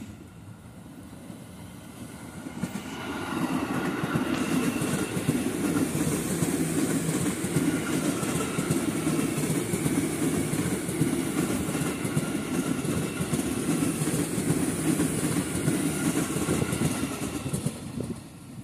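Ex-JR 205 series electric commuter train passing close by: wheels rumbling and clattering over the rails, with a steady whine above. It swells over the first few seconds, holds loud while the cars go past, and falls away near the end.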